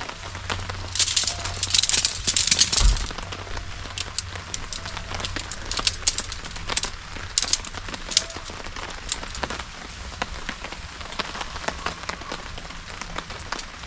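Rustling and crinkling of gear being handled, with a thump about three seconds in, then rain: scattered sharp drop ticks over a faint steady hiss.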